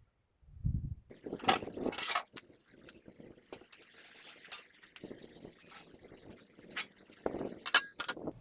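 Handling noise in a metal workshop: a series of knocks, clinks and rustles as parts or tools are moved about, with the sharpest clinks a little after a second in and again near the end.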